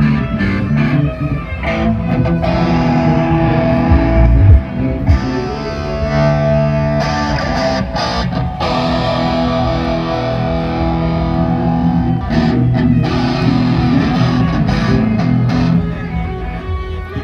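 Live band sound check: electric guitar playing over bass through the PA, with two loud low thumps about four and five seconds in.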